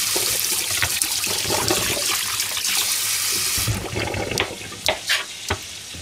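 Kitchen tap running full into a stainless steel sink, the stream splashing on a metal colander, then shut off about two-thirds of the way through. A few separate knife clicks on a plastic cutting board follow near the end.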